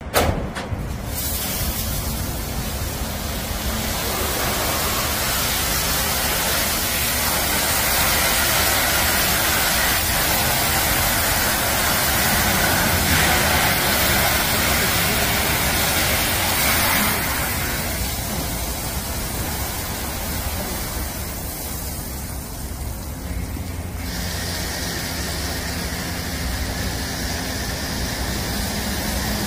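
Touchless automatic car wash gantry's high-pressure nozzles spraying water over a car: a steady, loud hiss of spray that starts about a second in. The spray sound changes about 17 seconds in and again about 24 seconds in as the wash switches stages, ending with foam being sprayed.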